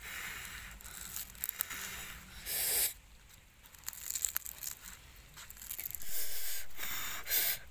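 Hands tearing apart a charcoal-grilled whole fish, the charred skin and flesh crackling and squishing as it is pulled open on a leaf, with a couple of louder hissing bursts about two and a half seconds in and again near the end.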